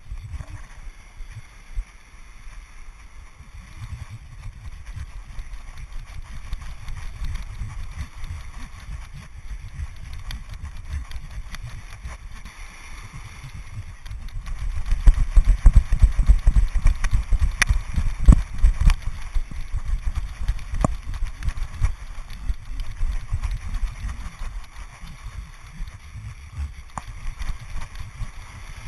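Wind and jostling noise on an action camera's microphone carried just behind a pug's head, low and gusting, heaviest about halfway through, with a few sharp knocks of the camera.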